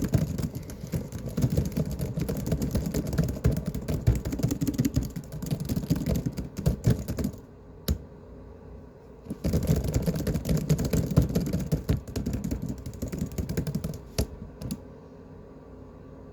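Fast, aggressive typing on a laptop's built-in keyboard: two dense runs of rapid key clicks, the first stopping about seven seconds in and the second starting about two seconds later, then only a few scattered taps near the end.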